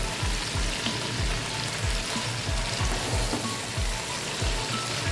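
Background music with a steady beat over the even sizzle of shredded cabbage and chicken frying in a pan.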